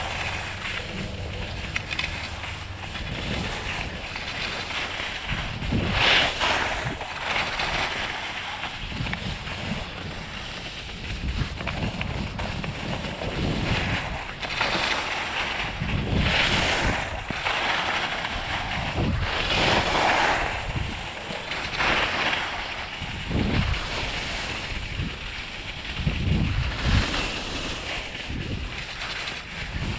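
Skis hissing and scraping over packed piste snow, swelling with each turn every few seconds, with wind rumbling on the microphone.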